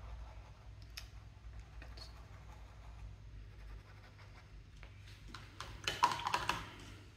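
Paintbrush dabbing and brushing acrylic paint onto a stretched canvas, faint and scratchy. About six seconds in, the brush is rinsed in a cup of water: a brief, louder burst of clicking and rattling against the cup.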